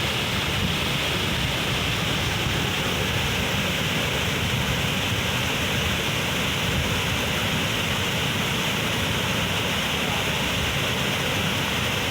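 Waterfall with water pouring down, making a steady, unbroken rush of noise.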